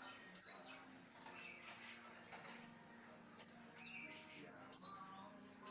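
Lovebird chirping: short, sharp high-pitched calls that each drop quickly in pitch. They come irregularly, several in quick succession in the second half.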